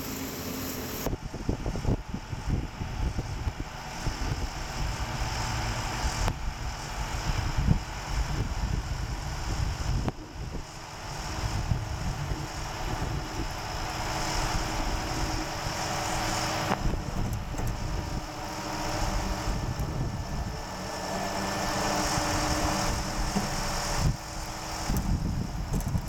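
Cotton harvesting machinery running: a steady engine drone whose level swells and dips a few times.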